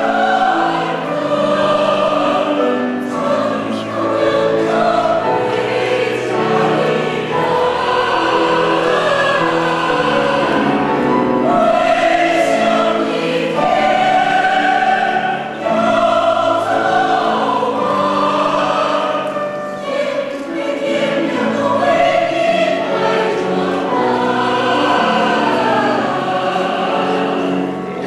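Mixed choir of men and women singing a choral song in several parts, with long held notes.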